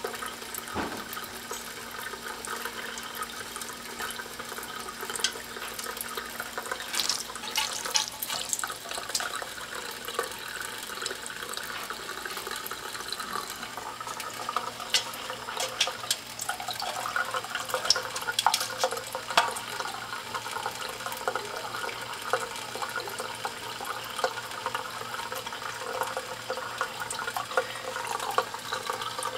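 Thin stream of tap water running from a kitchen faucet into a stainless steel sink, with irregular splashes and ticks as a cat paws and bites at the stream.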